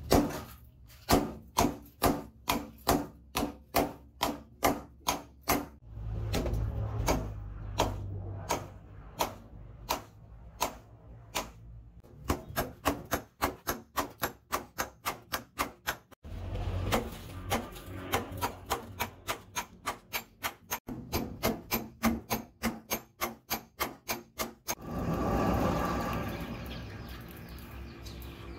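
Hand hammer striking red-hot leaf-spring steel on a steel post anvil, in steady runs of about two to three blows a second with short pauses between runs. Near the end the blows stop and a broad rushing noise swells and fades.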